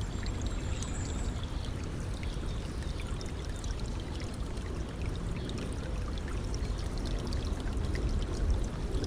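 Stream flowing and trickling: a steady rush of water with many small splashes and droplet ticks.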